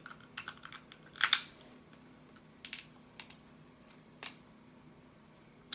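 Scattered clicks and crackles of cooked crab and lobster shell being pried apart by hand to get at the meat, with one louder crunch a little over a second in, over a faint steady hum.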